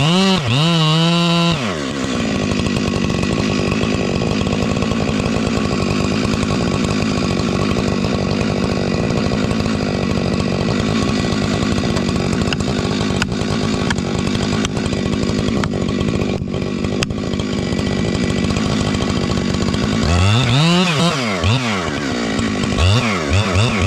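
Chainsaw engine revving up and down, then running steadily at a lower, laboured pitch for most of the time as it cuts into wood. From about 20 s in it revs up and down again in quick repeated blips.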